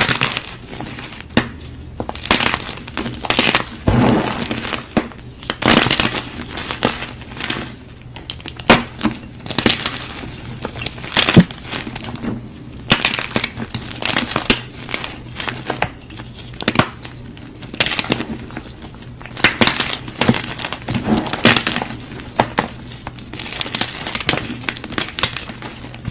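Blocks of gym chalk being crushed and crumbled: a long run of irregular dry crunches, some sharper and louder than others.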